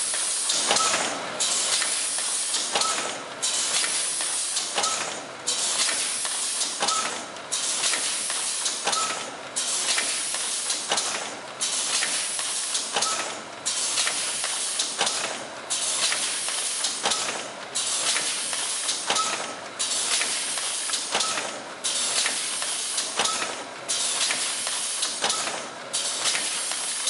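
APH 01-2W horizontal doy-pack form-fill-seal machine running its cycle on zip-lock stand-up pouches. There is a steady hiss that drops out briefly about every two seconds, with a light click at each cycle.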